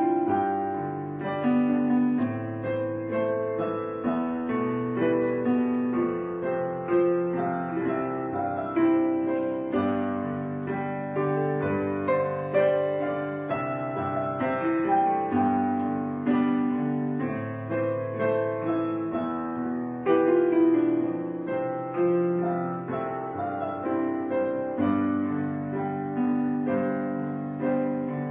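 Background piano music: held notes and chords that change every second or two.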